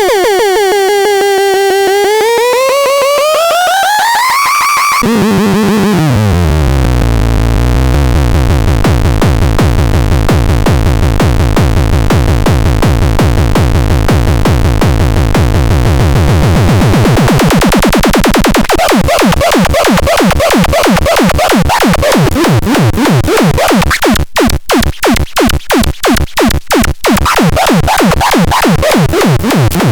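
Electronic synthesizer music: a pitch dips and then climbs over the first few seconds, then a deep falling sweep drops into heavy bass with fast, even pulsing. Near the end it breaks into a choppy stutter of rapid cut-outs before the pulsing resumes.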